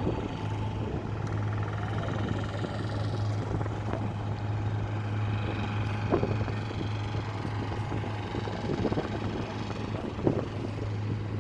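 A boat engine running steadily with a low, even hum, with a couple of brief knocks partway through.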